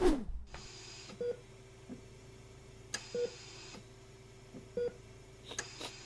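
A short falling swoosh at the start, then a medical monitor beside a baby's incubator giving short soft beeps about every two seconds over a faint steady hum.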